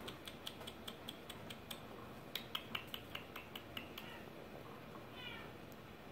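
Bengal kittens' claws clicking on a laminate floor as they trot about: two quick runs of light ticks, about five a second, then one short high kitten mew near the end.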